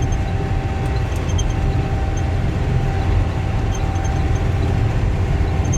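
Self-propelled swather running steadily while cutting wheat: a constant low engine rumble with a thin steady whine over it.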